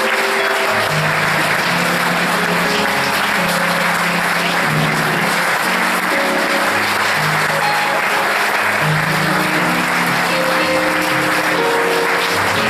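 Audience applauding steadily while a band plays underneath, its bass line stepping from note to note.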